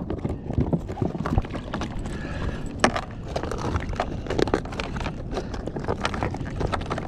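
Kayak paddle strokes splashing in the sea, with many irregular clicks and knocks over a steady wash of water and wind.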